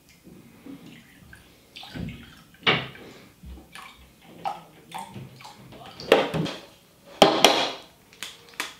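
Milk pouring from a plastic jug into a glass measuring jug, in uneven glugs and splashes, with a knock near the end as the jug is set down on the table.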